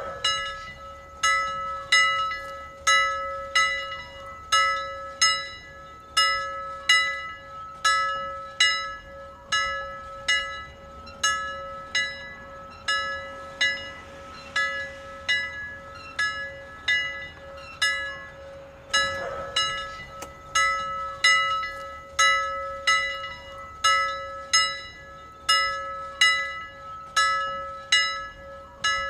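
A temple bell rung steadily, about two to three strikes a second alternating louder and softer strokes, its ring hanging on between strikes.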